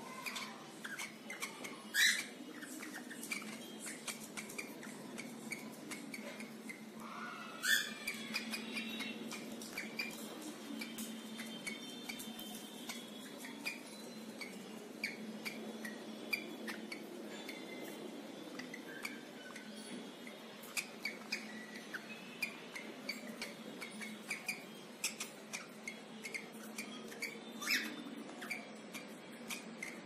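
Cockatiels at a plastic tub of water: many small clicks and taps from beaks and claws on the plastic and water, with a few short chirps — one about two seconds in, a rising call near eight seconds, and one near the end.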